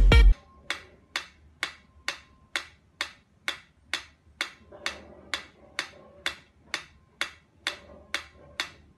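A mechanical pyramid metronome ticking at a steady beat, a little over two sharp ticks a second.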